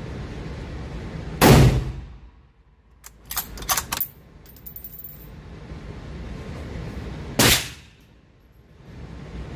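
Two shots from a Ruger American bolt-action rifle in .308 Winchester, about six seconds apart. Between them the bolt is worked by hand with a quick series of sharp metallic clicks.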